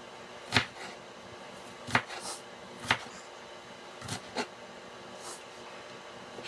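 Kitchen knife chopping onion on a cutting board: six sharp, irregular knocks of the blade striking the board, roughly a second apart.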